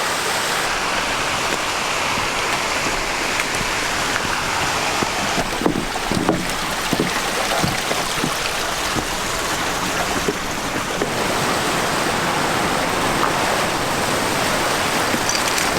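Steady rush of a fast mountain stream, with a few soft knocks about halfway through.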